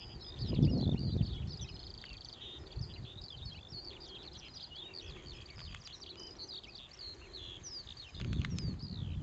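Outdoor songbird chorus: several birds chirping and trilling at once, many short high calls overlapping throughout. A low rumble comes through about half a second in and builds again near the end.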